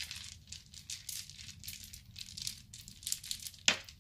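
Jewelry being handled: irregular crinkling and light clicking, with one sharper click shortly before the end.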